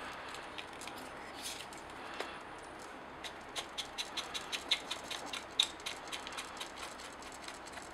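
Small sharp plastic clicks from the buttons and command dials of a Nikon D800 body and its battery grip being pressed and turned. A few scattered clicks come first, then a quick run of about four or five a second through the second half.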